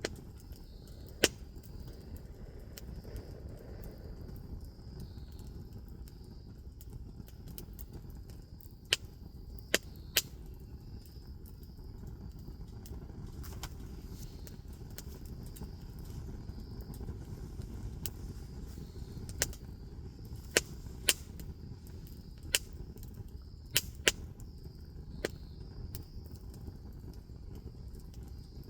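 Wood bonfire burning, with about a dozen sharp crackling pops at irregular intervals over a steady low rumble. A faint steady insect chirring sits high above it.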